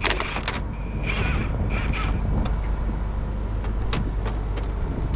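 Steady low rumble of a rollback truck on the road, heard from inside the cab, with scattered small rattles and clicks.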